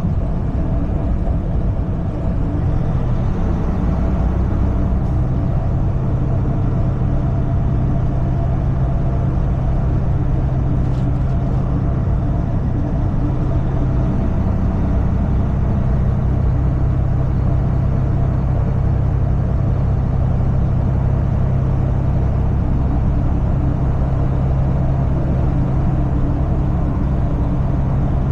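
Semi truck running steadily at road speed: a continuous low engine drone with road noise.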